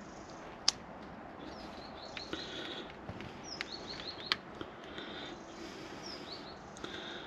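Birds singing: groups of short falling high chirps and a few held whistled notes. Two sharp clicks, under a second in and about four seconds in, come from handling the brake wear sensor wire and its clips at the rear hub.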